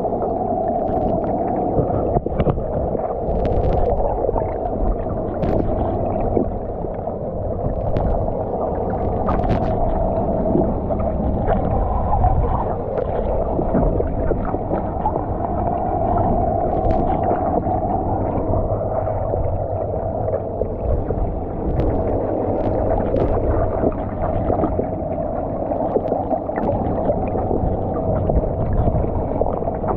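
Underwater sound from a camera in the sea: a steady muffled drone with gurgling and scattered sharp clicks.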